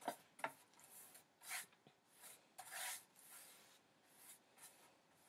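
Flat paintbrush stroking wet paint across a painted board: a string of faint, short brushing swishes, the longest near the middle.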